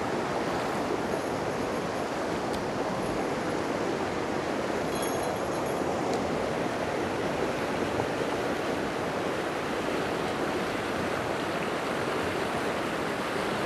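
Mountain river pouring over a low rocky cascade: a steady rush of white water.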